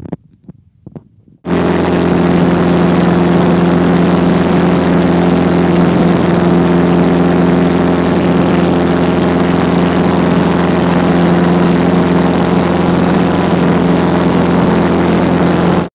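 A Van's RV-8's Lycoming piston engine and propeller running steadily in flight, heard loud from inside the cockpit. The engine sound cuts in sharply about a second and a half in, after a few faint short sounds.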